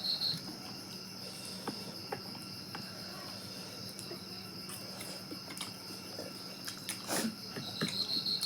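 A steady high insect trill, with short pulsed chirps near the start and again near the end, over scattered soft clicks and one louder knock about seven seconds in.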